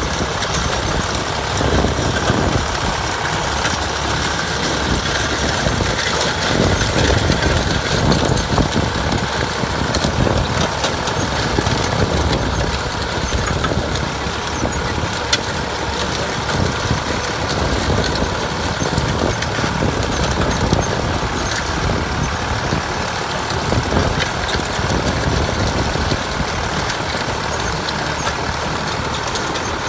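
Tractor's diesel engine running steadily under load while pulling an MF-type mounted disc plough, its discs scraping and crunching through dry, stony soil.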